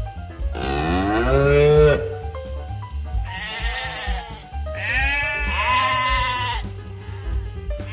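A cow moos once, about half a second in, then a sheep bleats twice in long, wavering calls, over background music.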